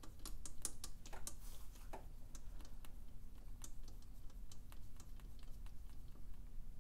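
Light, irregular metal clicks and ticks as a long bolt is threaded by hand into the crankcase of a KTM 450 SX-F engine, feeling for the crankshaft notch that locks it at top dead center.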